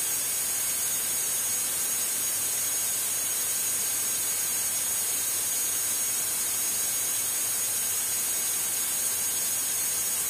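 Steady, even hiss with a thin, high, constant whine: the background noise of the aircraft's intercom and radio audio feed, heard between radio calls during the climb.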